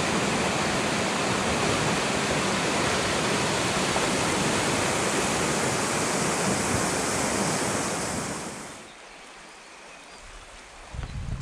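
Whitewater rushing steadily over a river's stepped riverbed ramp. About eight and a half seconds in it fades out, leaving a much quieter background.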